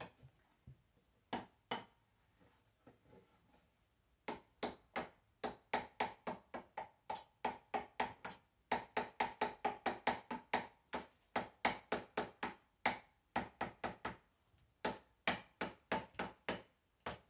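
Small hammer tapping little tacks in to hold a curtain on a vanity: a few taps, a pause, then quick runs of light ringing strikes, about three a second, broken by a short gap near the end.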